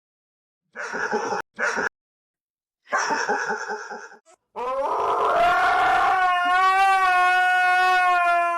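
A dog vocalising: a few short, rough yowls, then from about halfway one long howl held on a steady pitch for about four seconds.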